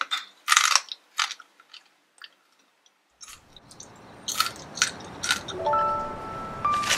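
Crisp crunching as a mouthful of air-fried anchovies is chewed, with several sharp crunches in the first second and a half and a few more about four to five seconds in. Soft background music comes in near the end.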